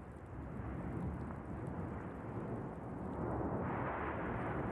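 Simulated volcanic eruption from a model Vesuvius: a steady low rumble, with a hissing rush swelling up about three and a half seconds in.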